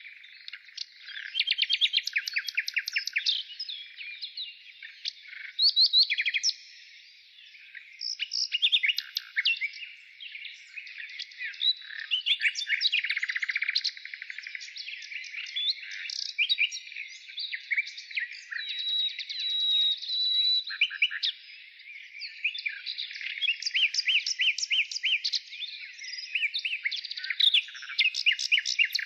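Songbirds singing: rapid, chattering runs of high notes and short whistled phrases, coming in spurts with brief pauses, with a held whistle in the middle.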